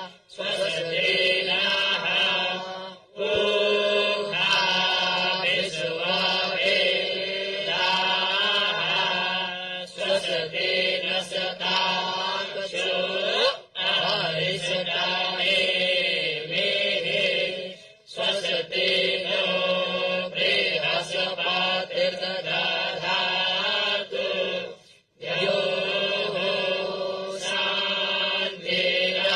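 A group of young Vedic students (batuks) chanting Sanskrit mantras in unison, in phrases of a few seconds with short pauses for breath between.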